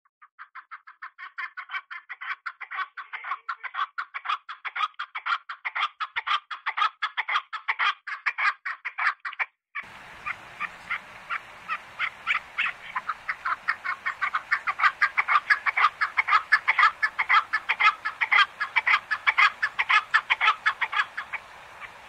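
Canada geese calling: a fast, continuous run of short calls, several a second, with a brief gap about ten seconds in before they go on.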